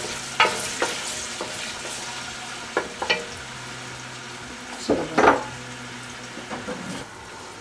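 Chopped onion sizzling in hot oil in an aluminium pot, stirred with a wooden spoon at first. A few light knocks and clicks break in, the loudest about five seconds in.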